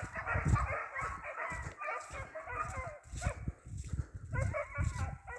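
Hare hounds baying in full cry on the scent of a hare, a dense run of short, overlapping yelps and bays with a short break about four seconds in.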